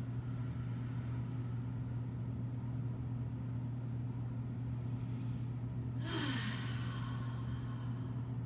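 A steady low hum, with one deep breathy exhale, a sigh that falls in pitch, starting about six seconds in and lasting about two seconds.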